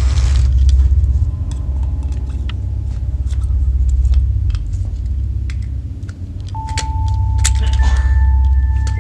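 A deep, steady rumbling drone with light clicks and rattles of small objects being picked up and handled on a workbench. A high sustained tone comes in about six and a half seconds in.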